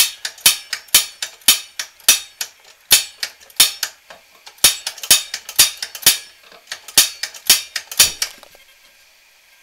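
Piezo igniter of a 3000 BTU catalytic propane heater clicking over and over, about two sharp clicks a second, as the heater is slow to light. The clicking stops about eight seconds in, when the burner catches.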